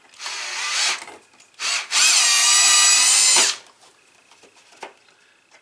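Cordless drill-driver driving a screw into a smoke alarm's mounting plate. There is a short run near the start, then a longer steady whine of about a second and a half that stops sharply.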